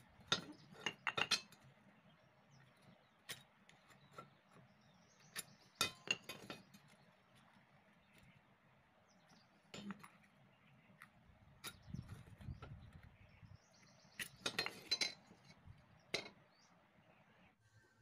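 Steel try square and small teak pieces being handled on a concrete floor while marking out: scattered light clicks and clinks, bunched in a few short clusters.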